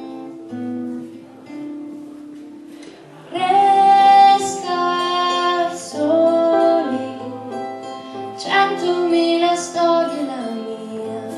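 Live pop song with keyboard and guitar accompaniment; about three seconds in, a woman's singing voice comes in louder over the instruments.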